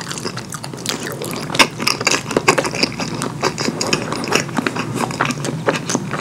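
Close-miked wet chewing and mouth smacking of someone eating saucy curry food, a dense run of sticky clicks and squelches.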